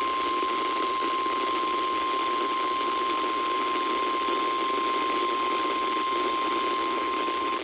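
NOAA Weather Radio warning alarm tone: a single steady tone of about 1050 Hz over radio static, cutting off near the end. It signals that a warning broadcast, here a flood warning, follows.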